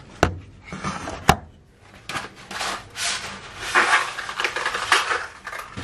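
A cardboard box of thin spaghetti being handled and torn open: two sharp knocks in the first second or so, then a few seconds of dry cardboard scraping and rustling.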